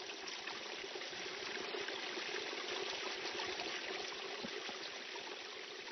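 Mountain spring water trickling and splashing over rocks into a shallow stone trough, a steady patter of small splashes.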